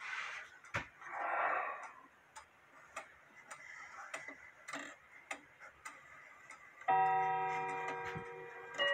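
New England Cathedral wall clock with a Hubert Herr movement ticking steadily, then sounding its half-hour strike: two ringing chime notes of different pitch about two seconds apart, each left to ring on.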